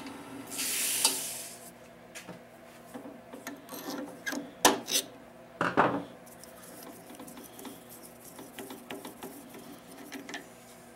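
Hands handling a stopped drill-press hole saw: light rubbing and scraping with a few sharp clicks and knocks, the loudest just under five seconds in and again around six seconds in. A short hiss comes about a second in.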